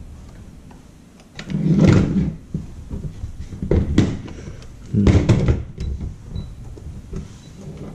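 A string of knocks and clicks as the second handle is pried off a Schlage electronic door lock, a thin metal spike pressing its release. The heaviest knocks come about two seconds in and again about five seconds in.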